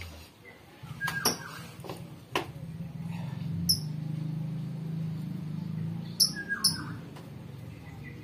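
A low steady hum with a few sharp clicks, and three short high chirps, one about halfway through and two close together later, falling quickly in pitch like small bird calls.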